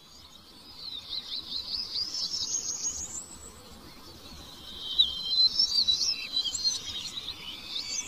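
Rainforest birds singing: a fast run of repeated chirping notes in the first few seconds, then another song of short whistled glides, loudest about five seconds in.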